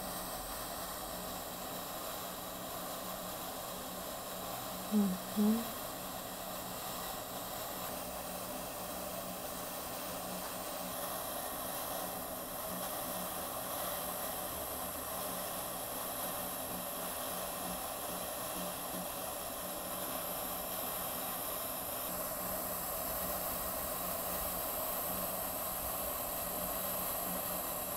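Steady hiss, broken by two brief murmurs about five seconds in.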